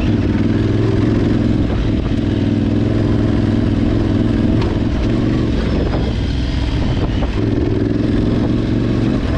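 Motorcycle engine running steadily at low road speed as the bike rides over a rough dirt track, with a few short knocks in the middle.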